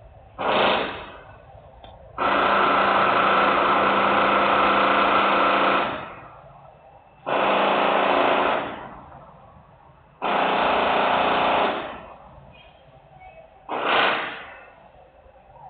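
Loud buzzing bursts from an industrial power tool, five in all: a short blip, a run of nearly four seconds, two runs of about a second and a half, and another short blip near the end.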